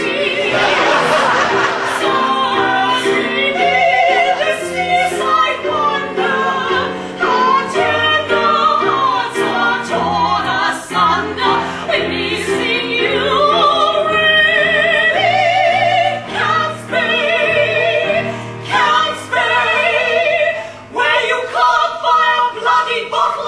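Women's voices singing in an operatic style with wide vibrato, over a steady low musical accompaniment.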